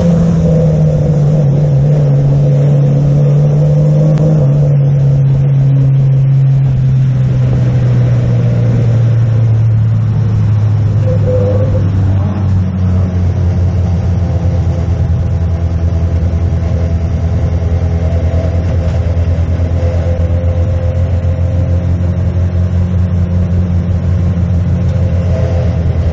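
Oval-racing car's engine heard on board, its revs dropping steadily over the first ten seconds, then running evenly at low, steady revs.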